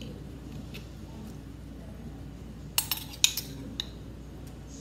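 A metal spoon clinking against the inside of a glass jar as sweet pickle relish is scooped out, a quick cluster of sharp clinks about three seconds in.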